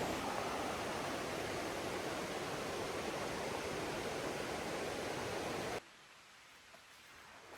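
Steady rushing of flowing water, a stream or waterfall, that cuts off suddenly about six seconds in, leaving faint outdoor quiet.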